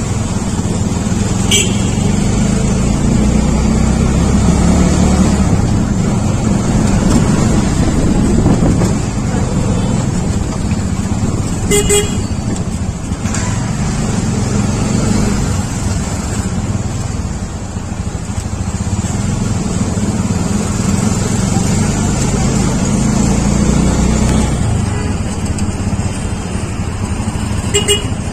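Busy street traffic heard from a moving vehicle: a steady engine and road rumble, with short vehicle horn toots about a second and a half in, around twelve seconds in, and near the end.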